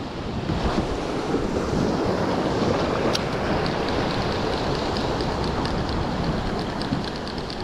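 Surf washing over rocks, with wind on the microphone. About three seconds in there is a single sharp click, then a spinning reel is wound in with a faint regular ticking, about three ticks a second.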